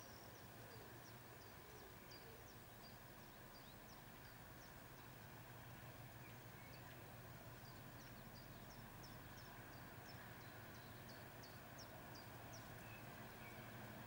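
Small birds chirping faintly, many short high calls in quick series, coming in two runs with a gap between, over a steady low hum that grows slightly louder toward the end.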